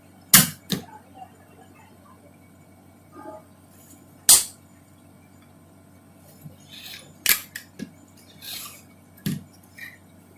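Spring-loaded push-button desoldering pump: about six sharp snapping clicks spread out over several seconds as its plunger is cocked and released to suck up molten solder, with softer scraping and rustling between them.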